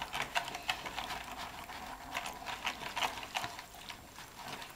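A small coil whisk stirring gelatine into hot water in a plastic bowl: quick, irregular clicks and scrapes of the wire against the bowl, with the liquid splashing.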